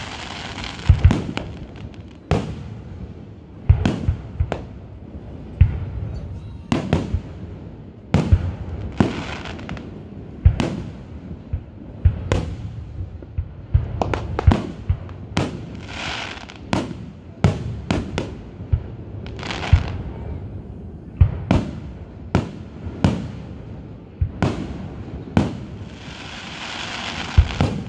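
Aerial fireworks display: shells bursting in quick succession, a steady run of sharp bangs about one a second with some louder booms among them.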